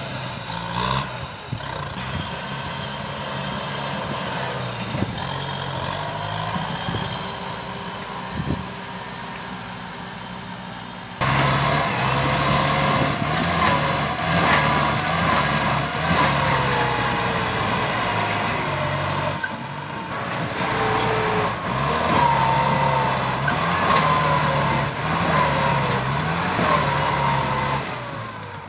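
Kubota farm tractor's diesel engine working under load as it pushes through brush, its pitch rising and falling. It gets suddenly louder about eleven seconds in.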